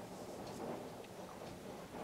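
Quiet indoor room noise with a few faint, soft clicks.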